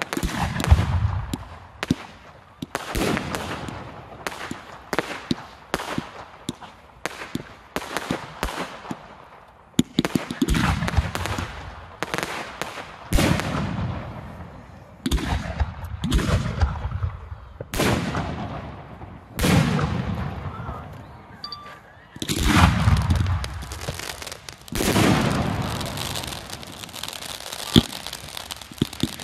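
Fireworks display: aerial shells bursting in quick succession, a sharp bang every second or two, each trailing off in a long echoing rumble. A denser crackle of bursting stars comes in the last few seconds.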